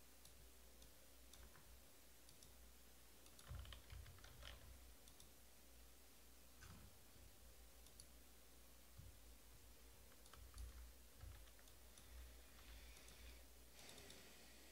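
Near silence over a low hum, with faint, scattered clicks of a computer keyboard and mouse in use, a small cluster about four seconds in and a busier patch near the end.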